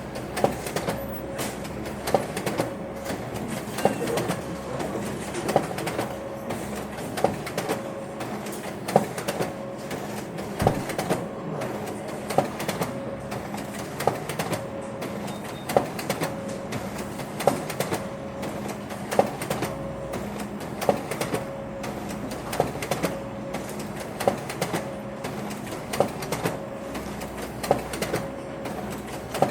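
Printer running continuously: a steady mechanical hum with a sharp click repeating regularly, roughly every second and a half to two seconds.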